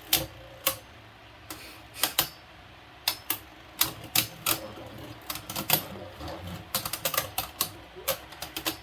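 Two Beyblade Burst spinning tops clashing in a plastic Hypersphere stadium: sharp irregular clacks as they hit each other and the stadium walls, sparse at first, then a quick flurry of hits near the end.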